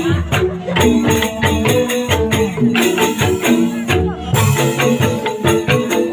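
Music with a steady beat: sharp, rhythmic hand percussion over held melodic notes and a bass line.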